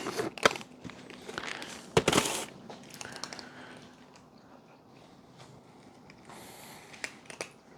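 A cat crunching dry treats, with a quick run of crisp crunches in the first few seconds, the loudest about two seconds in, then much quieter.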